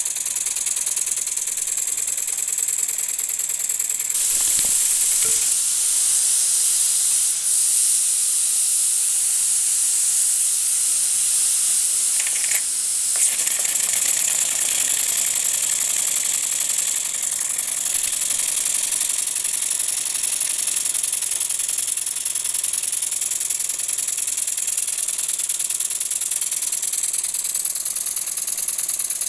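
Jensen 20 toy steam engine running steadily with a mechanical whir and a hiss of steam while belt-driving small Jensen 15 generators. The hiss grows louder about four seconds in and eases back around thirteen seconds.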